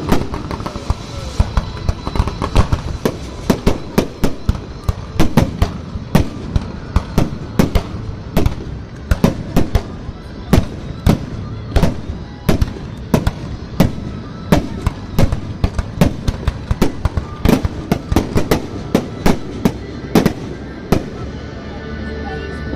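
Fireworks display heard from close by: a rapid, continuous series of loud shell bursts and crackles, about two to three bangs a second, thinning out near the end.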